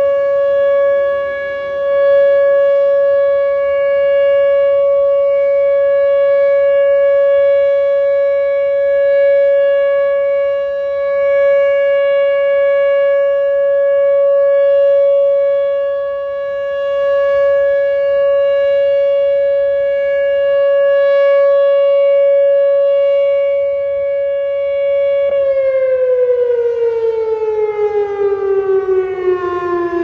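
Whelen WPS 2910 electronic outdoor warning siren sounding its test alert, a loud, steady single-pitch tone with overtones. About 25 seconds in, the pitch begins a slow downward glide as the siren winds down.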